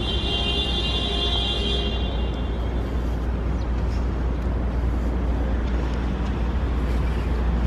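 Steady low rumble of outdoor street ambience, with a high buzzing tone over the first two seconds or so.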